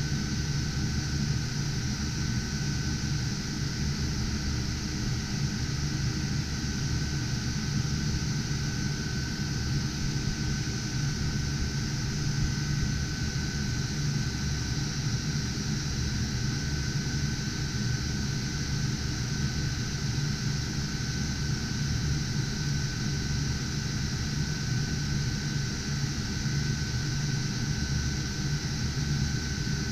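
Cooling fans of GPU cryptocurrency-mining rigs running: a steady whir with a few faint constant tones and no change in speed.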